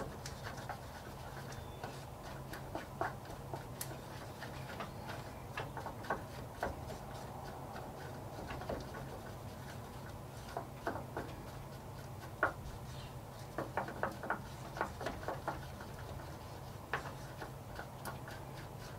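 Two-part epoxy being stirred by hand in a small cup: irregular light ticks and scrapes of the stir stick against the cup, thickest about two-thirds of the way through, over a low steady hum.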